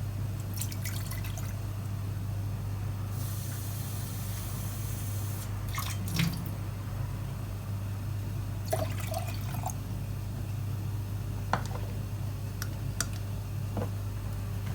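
Water running briefly and dripping at a sink, with scattered clicks and clinks of dishes over a steady low hum.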